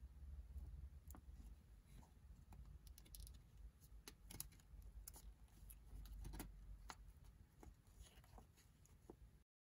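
Faint crinkling and scattered small clicks of origami paper being handled, folded and pinched into a crease by fingertips, over a low hum; the sound cuts off abruptly near the end.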